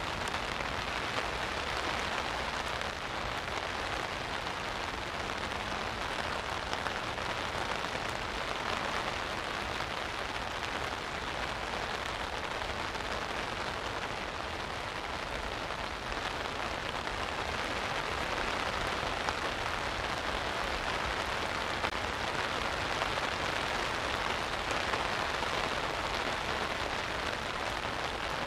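Steady heavy rain drumming on an umbrella overhead and hissing on the water around, with a few sharper single drop hits now and then.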